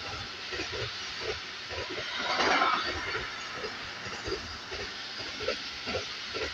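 Intermodal freight train of swap-body wagons rolling past close by: a steady rushing wheel-on-rail noise with a run of short irregular knocks, swelling louder briefly about two and a half seconds in.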